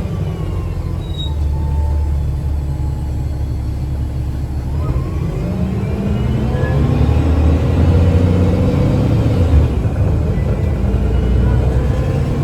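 Diesel transit bus heard from inside, a 2009 Gillig BRT 40' with a Voith automatic transmission: a low engine rumble under way, with a transmission whine that rises in pitch as the bus pulls harder from about halfway through.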